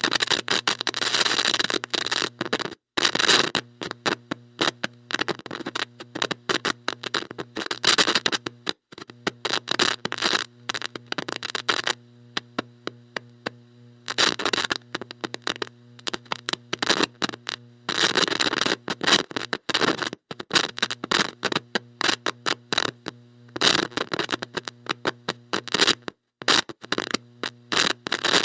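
Heavy electrical static from a bad electronic connection: a steady buzzing hum broken by dense, irregular crackles and bursts of hiss that cut in and out, dropping out briefly a few times.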